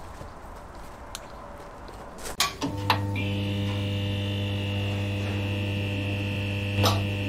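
Faint outdoor background noise, then a couple of sharp electrical crackles about two and a half seconds in and a steady electric hum and buzz, a neon-sign sound effect, which holds with one more crackle near the end.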